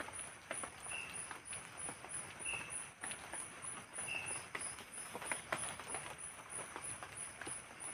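Night insects calling: a high chirp pulsing about three times a second, with a shorter, lower chirp about every second and a half. Irregular taps of drizzle drip onto the tarp and leaves.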